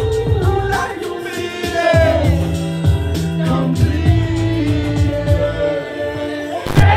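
Underground hip-hop played live through a PA: a male voice sings a melodic line into a microphone over a backing track with deep, held bass notes that step between pitches. A loud hit comes near the end as the beat lands.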